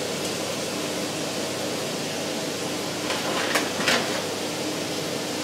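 Steady fan-like hiss with a faint hum, and two light clicks a little past halfway.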